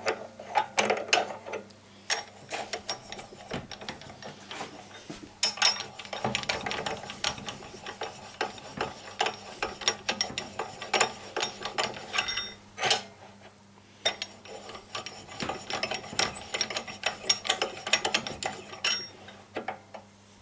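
Metal parts clicking and scraping as a small lathe cutting tool is fitted and clamped into its holder: rapid irregular clicks, some with a short metallic ring, pausing now and then.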